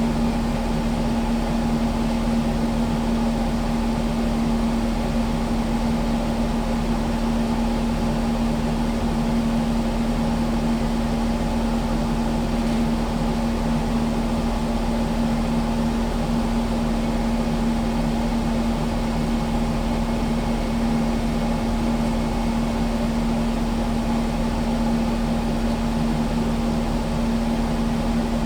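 Kubota skid steer's diesel engine running at a steady speed, an even drone with no change in pitch or level.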